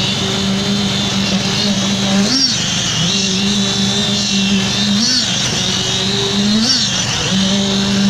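Engine-driven concrete poker vibrator running steadily in fresh concrete, a steady whine whose pitch briefly rises and drops back three times as the poker is worked in the mix.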